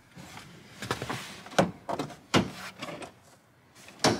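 Plastic upper dash panel of a 2007–14 GM truck being pressed down into place by hand: a few sharp knocks and snaps as its hooks and clips seat, with scraping of the hand sliding along the panel between them.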